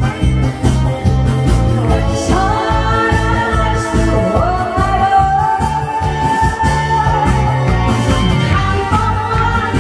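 A song sung over a karaoke backing track with a steady beat. From about two seconds in, the voice holds one long, wavering note.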